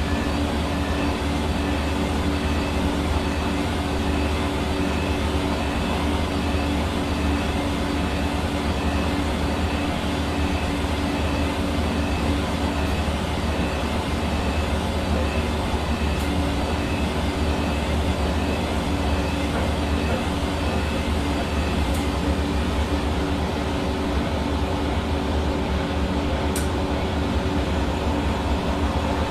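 Hair dryer running steadily: a constant rush of blown air over a steady motor hum, unchanging throughout.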